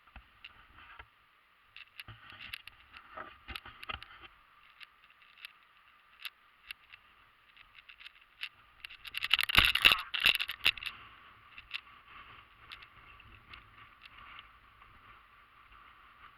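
Hoverboard rolling on a ship's deck: scraping and clattering, with many sharp clicks and a louder stretch of scraping rattle about nine to eleven seconds in.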